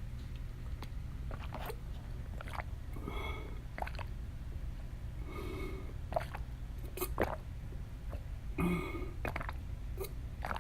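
A woman gulping water: three swallows, with wet mouth clicks between them, over a steady low hum.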